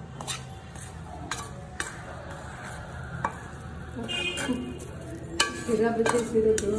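A spatula scraping and knocking against steel as hot Mysore pak mixture of besan, sugar and ghee is scraped out of the kadhai onto a steel plate, with a soft sizzle from the hot ghee. The knocks and scrapes come thicker and louder in the second half.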